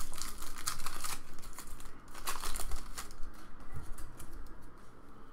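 A trading card pack wrapper being torn open and crinkled by hand, in two crackly spells: through the first second and again around two to three seconds in. The cards are handled more quietly afterwards.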